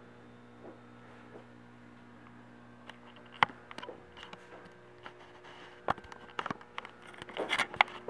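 Steady low hum of a quiet room. A sharp click comes about three and a half seconds in and another near six seconds, then a quick run of taps and knocks near the end: footsteps and handling noise from a handheld camera moving through the room.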